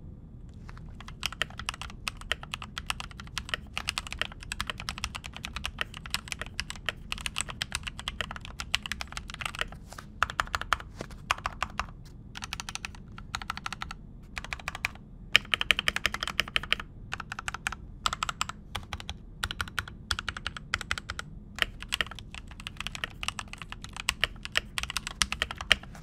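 Typing on a Keychron K4 v2 aluminium-frame mechanical keyboard fitted with pre-lubed Gateron G Pro Red linear switches: a fast, continuous run of keystrokes with a few brief pauses.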